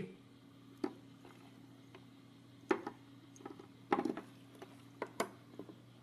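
Handling noise from small electronics: a few light taps and clicks as the jumper-wired microcontroller board and servo are handled and set down on a table, over a faint steady hum.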